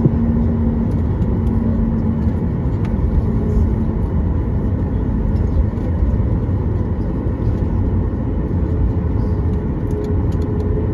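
Steady cabin noise of a Boeing 737-8 MAX taxiing, heard from inside the cabin over the wing: a low, even rumble of its CFM LEAP-1B engines at taxi power. A faint steady hum fades out about halfway through, and a slightly higher hum comes in near the end.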